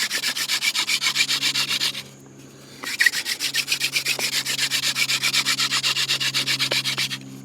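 Yucca hand-drill spindle twisted back and forth between the palms, grinding into a trumpet-vine hearth board in fast, rhythmic rubbing strokes. The strokes stop for about a second near two seconds in as the hands go back to the top, then resume and stop shortly before the end. The spindle is burning in its socket in the board.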